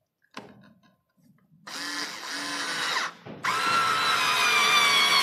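Daewoo 3.6 V cordless screwdriver driving a short screw: a click, then its motor whines in two runs, the second louder, its pitch sinking slightly as the screw draws in.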